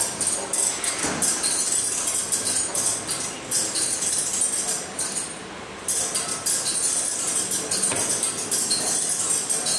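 Wire-and-paper kinetic sculpture rattling and clinking lightly as it turns, over a steady high-pitched rustle that drops away briefly about five seconds in.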